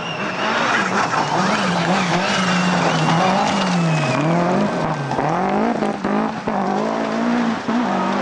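Rally car on a gravel stage, its engine note rising and falling repeatedly with throttle and gear changes as it approaches and passes. Tyres scrabble and gravel sprays as it slides through.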